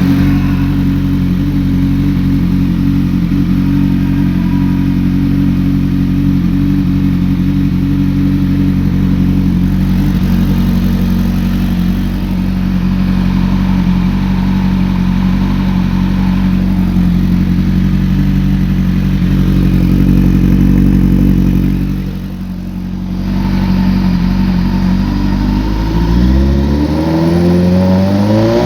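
2008 Kawasaki ZX-10R's inline-four engine idling steadily, which its owner says is making a knocking noise. In the last few seconds the revs rise and fall with throttle blips.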